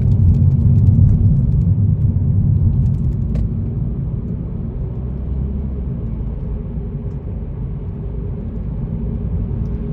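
Car interior road and engine rumble while driving, loudest for the first three seconds and then steady, with a few faint ticks over that loudest stretch.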